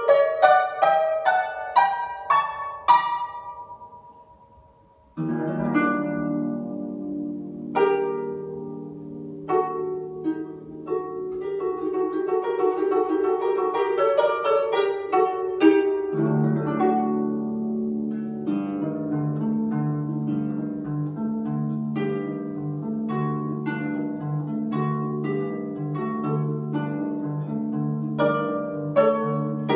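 Solo harp playing: plucked notes ringing on, a quick passage that dies away into a short pause about four seconds in, then a new passage with low accompanying notes, the bass getting deeper about halfway through.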